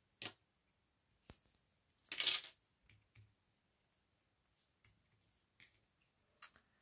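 Small cardstock pieces being handled and pressed down by hand on a tabletop: a sharp click just after the start, a brief paper rustle about two seconds in, and a few faint taps and ticks.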